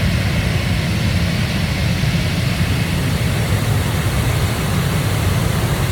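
Powerful water jet gushing from a dam's release outlet: a loud, steady rush with a deep rumble underneath.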